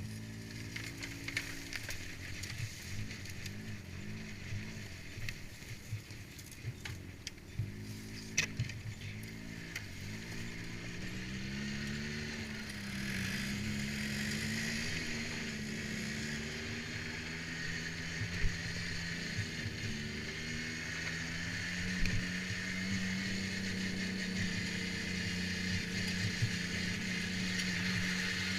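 An ATV engine revving up and down with the throttle, with scattered knocks and rattles, through the first half. From about halfway it settles into a steadier, louder run that climbs slowly in pitch.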